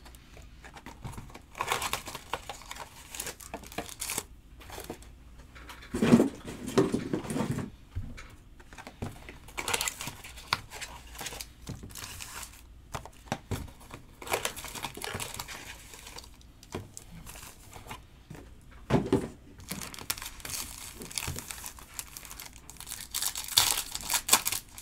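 Foil wrappers of Bowman Chrome trading card packs crinkling as they are handled and stacked, in irregular bursts, the loudest about six seconds in, around nineteen seconds and near the end.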